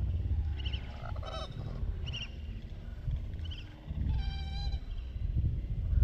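Wild birds calling over a low wind rumble on the microphone: several short high chirps, then one longer call with several pitches stacked, about four seconds in.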